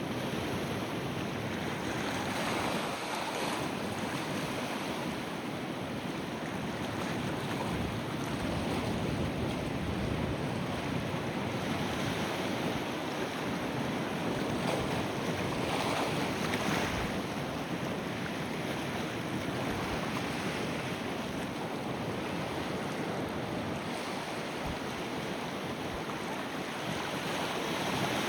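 Pacific Ocean surf washing in steadily, with wind buffeting the microphone. The surf swells louder a few seconds in and again just past the middle.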